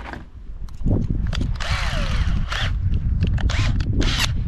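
Power drill driving roofing screws through a metal roof's ridge cap into the wooden batten beneath. It runs in several short bursts; in the longest, about two seconds in, the motor pitch slides up and down. A steady low rumble sits underneath.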